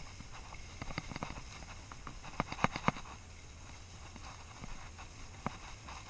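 Skis sliding downhill over snow, with scattered sharp clacks and clicks, a cluster about a second in and another around two and a half seconds in, over a low steady rumble.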